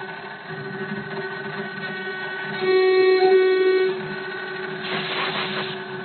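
Desktop 3060 CNC engraving machine carving a relief into wood: the spindle whines steadily while the stepper-driven axes move, with a louder whine for about a second around the middle and a short hissing burst near the end.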